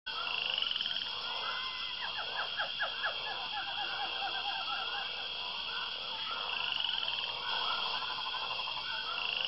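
Tropical rainforest ambience: a steady high insect drone with a chorus of frog calls and quick chirping trills over it.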